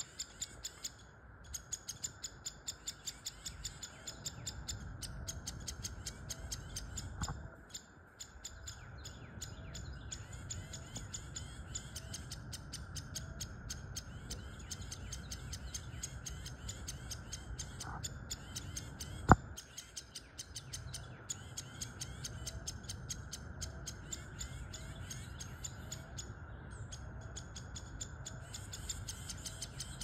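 Woodpecker nestlings calling from the nest tree: continuous fast, high-pitched chattering chirps that pause briefly a few times. A softer, lower note repeats about once a second behind it, and a single sharp click stands out about two-thirds of the way through.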